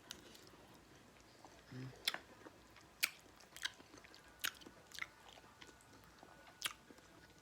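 Close-miked mouth sounds of a person eating: chewing with sharp wet smacks and clicks, about one every second, and a brief low hum about two seconds in.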